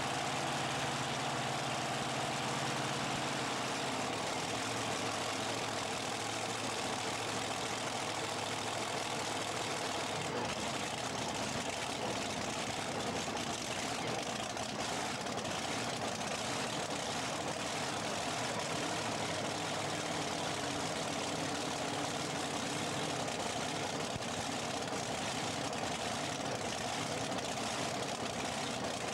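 Supercharged V8 engines of a multi-engine modified pulling tractor idling steadily.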